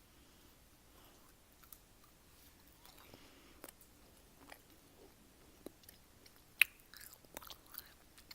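Close-up chewing of gummy jelly: quiet, sticky mouth clicks and smacks, sparse at first and more frequent over the last two seconds, with one sharper click about six and a half seconds in.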